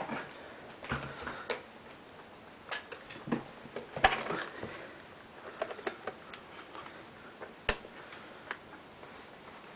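Irregular clicks and light knocks from handling a camera and laptop on a desk, a dozen or so at uneven intervals, the loudest about four seconds in and a sharp click near the end.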